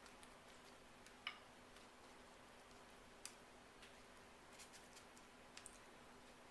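Near silence: a faint steady hum, with a few soft, scattered clicks as a pastry brush dips into a bowl of melted butter and dabs it onto baked biscuits.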